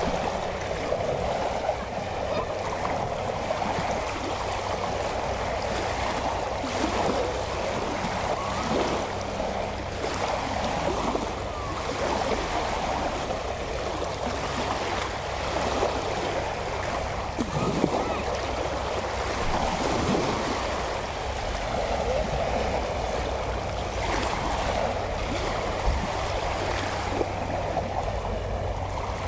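Small waves lapping at the water's edge, a continuous splashing and gurgling wash of water.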